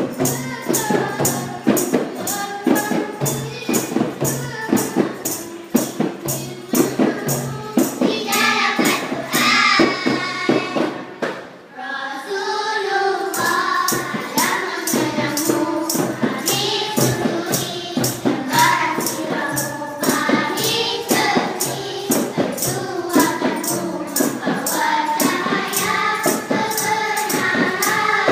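Girls' nasyid group singing together in unison over a steady percussion beat. The beat and singing break off briefly about eleven seconds in, then carry on.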